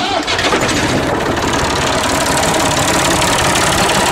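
Tractor's diesel engine, just started, running steadily at idle.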